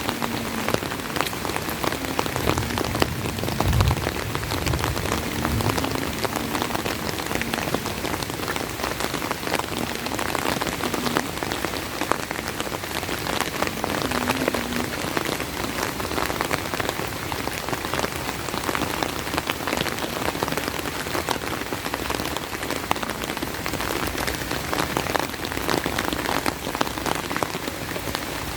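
Steady rain, a dense patter of drops close by, with a brief low thump about four seconds in.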